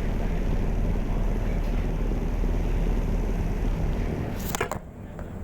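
Steady low rumble of a car ferry under way. A little after four seconds in, a few sharp clicks, and the rumble drops quieter.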